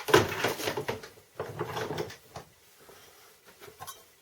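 Handling noise on a workbench: two bursts of rummaging and rustling in the first two seconds, then a single sharp knock as something is set down.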